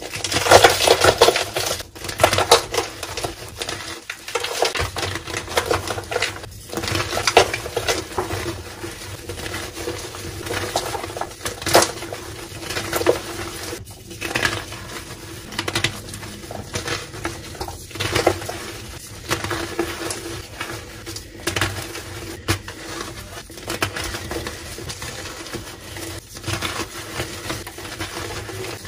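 Soft gym chalk blocks (magnesium carbonate) squeezed and broken apart by hand, a dense irregular run of crisp crunches and crackles as the blocks crumble into powder.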